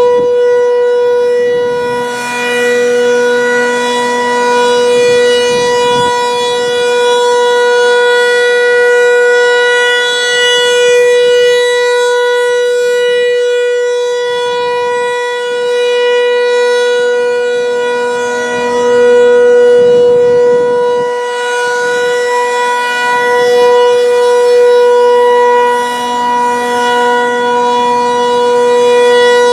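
Federal Signal 508 outdoor warning siren sounding the steady 'alert' signal: one continuous pitch with many overtones, swelling and fading a little in loudness, as in a scheduled siren test.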